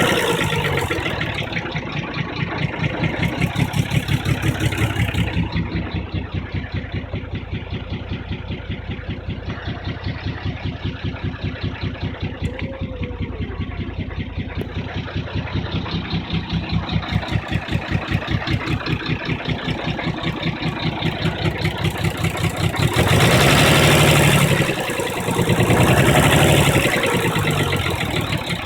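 Nissan 300ZX's V6 idling with a steady pulsing beat on its first start after sitting about five years; the owner thinks it is running on only five of its six cylinders. It is revved twice near the end.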